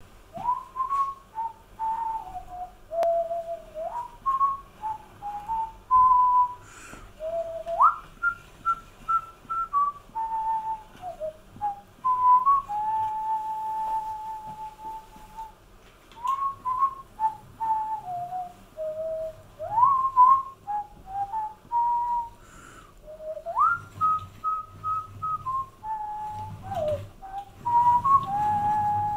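A person whistling a tune: one clear melody line stepping from note to note with a few quick upward slides, the phrase repeating about halfway through.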